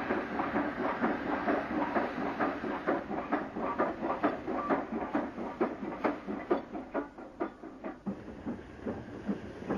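Steam train running past, with a steady rhythmic beat of about three a second that grows a little quieter in the second half.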